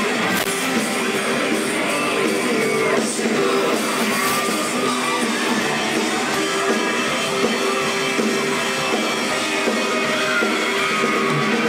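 Live pop-rock band playing amplified music in a large hall, guitars and singing, with fans yelling over it.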